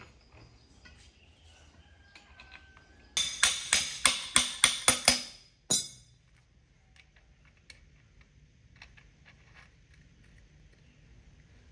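Motorcycle front axle being driven through the wheel hub and fork leg: about eight sharp, ringing metal-on-metal taps in quick succession, about three a second, a little over three seconds in, then one more. Faint small clicks of metal parts being handled before and after.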